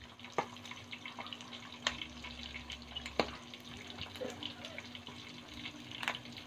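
Pork belly chunks frying in hot oil in a pan: a steady sizzle full of small crackles, with a few louder pops of spattering oil.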